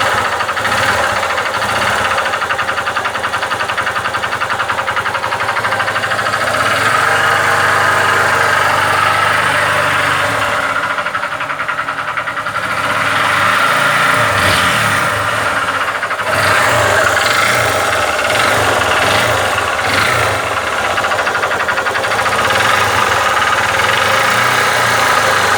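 Honda Titan 150 single-cylinder motorcycle engine running with a rapid metallic knock, revved up a couple of times, which the mechanic takes for a worn connecting rod (biela).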